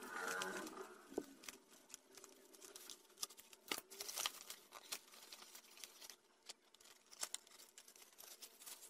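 Faint handling noise of a parcel being opened: scissors cutting tape on bubble wrap, then crinkling bubble wrap and plastic with scattered light clicks as a small cardboard box is pulled out.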